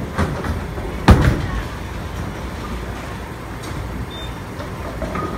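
Bowling ball rumbling down a wooden lane over the steady din of the bowling hall, with one sharp loud knock about a second in.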